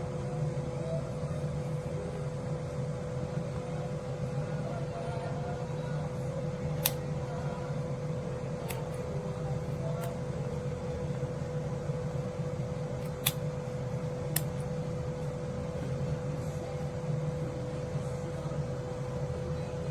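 Mini travel hair dryer running steadily, its blower giving a constant whine over a low rush of air, with a few light clicks.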